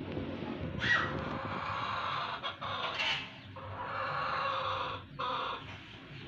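A hen clucking in a run of calls, loudest about a second in and again about three seconds in.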